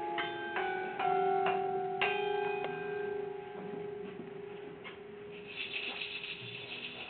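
Metal objects being struck, ringing like bells. There are about half a dozen sharp strikes over the first three seconds, each leaving a ringing tone that hangs on and slowly fades, then a softer strike about five seconds in and a light, high metallic jangle near the end.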